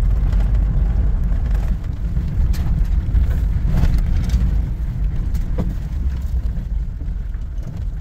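Vehicle cabin noise while driving a rough, snow-covered dirt track: a steady low rumble of engine and tyres, with scattered knocks and rattles.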